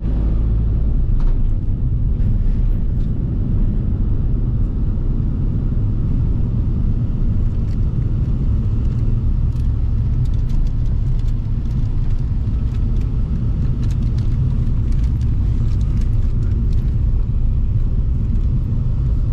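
Steady low road and engine rumble heard from inside the cabin of a moving passenger van.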